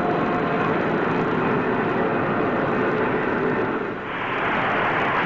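Sound effect of a spaceship's rocket engine as it lifts off and flies: a steady noisy rush. It dips briefly about four seconds in and comes back brighter.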